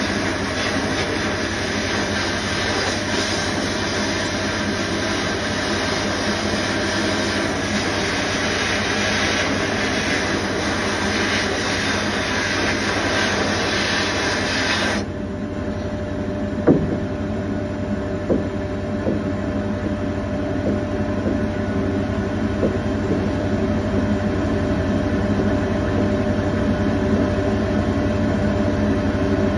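Sandblasting cabinet: the blast gun's steady hiss of compressed air and abrasive on a small steel C-clamp, which cuts off suddenly about halfway through. A steady machine hum carries on afterwards, with a few light knocks.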